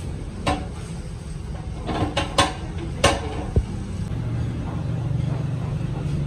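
Steel parts clinking and knocking as they are handled at a hydraulic press, a few sharp metallic knocks, then a steady low hum that begins about four seconds in.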